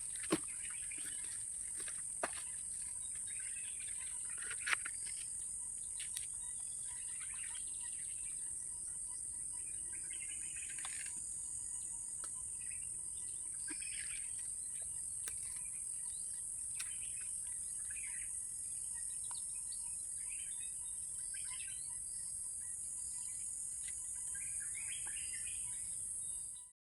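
Steady high-pitched drone of insects, with scattered short bird chirps and a few sharp clicks. It all cuts off suddenly near the end.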